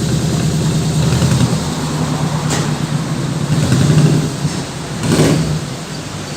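Engine running steadily with a low hum, with a brief rev about five seconds in.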